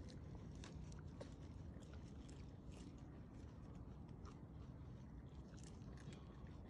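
Faint, irregular crackling of dry leaf litter under a baby macaque's hands and feet, a few small crunches a second over a low steady hum.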